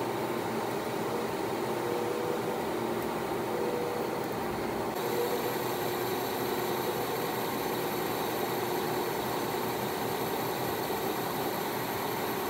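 Workshop machinery running: a steady mechanical hum with a few held tones, and a brighter hiss that joins about five seconds in.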